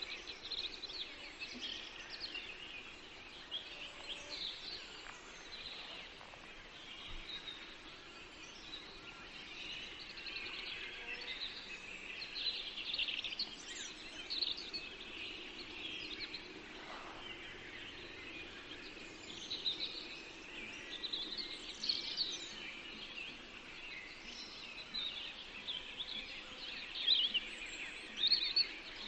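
Songbirds chirping and singing continuously, many short overlapping calls, over a faint steady low hum.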